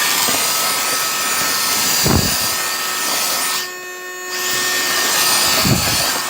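Mini Henry vacuum cleaner running: a steady motor whine under a loud rush of air as the nozzle sucks up grit and dirt from a hard floor. The air rush drops away briefly about four seconds in, then comes back, with two low bumps of the tool against the floor around two and six seconds.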